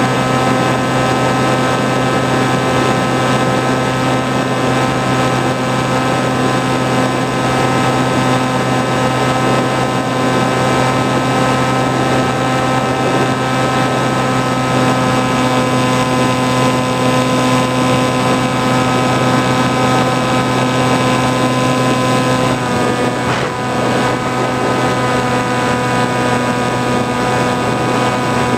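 The motor and propeller of an FPV flying-wing model plane, heard from the camera on board, running at a steady pitch under a rush of air. The pitch sags briefly about three-quarters of the way through.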